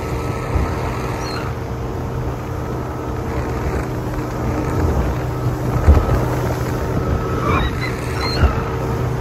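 Speedboat engine running steadily at cruising speed, with wind and water rushing past and the hull knocking on the waves a few times, hardest about six seconds in.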